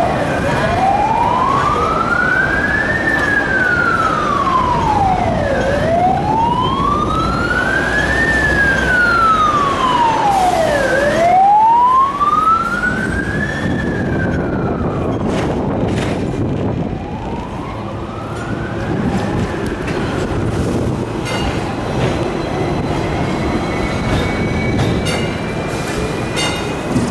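Emergency-vehicle siren wailing slowly up and down, each rise and fall taking about five seconds, fading away after about three cycles. Under it is the steady running rumble of a Hong Kong double-decker tram.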